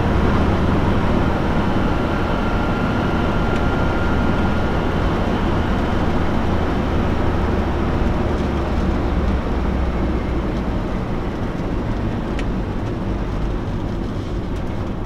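Steady engine drone and road noise inside the cab of an MK1 Renault Trafic van driving at speed on its swapped-in 2165cc four-cylinder petrol engine. A faint high whine sits over it and fades out about halfway through.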